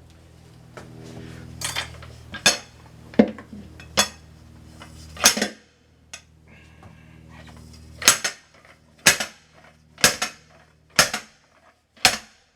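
A hand bead breaker being struck to break a tire's bead loose from the rim: about ten sharp metallic clanks, roughly one a second, in two runs with a short pause between them. A steady low hum runs under the first half.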